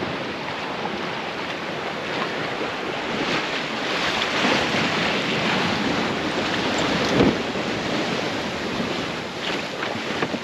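Seawater rushing and splashing along the hull of a sailboat running fast downwind, with wind buffeting the microphone. A brief louder splash comes about seven seconds in.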